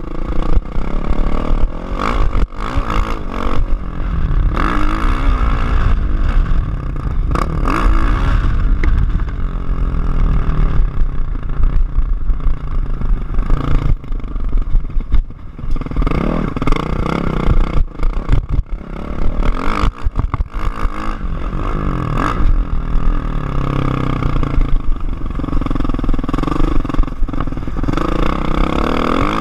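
Onboard sound of a 2013 Kawasaki KX450F's single-cylinder four-stroke engine being ridden hard, its note rising and falling again and again as the throttle is opened and shut, with a few brief lulls around the middle. Sharp knocks and rattles from the bike are mixed in.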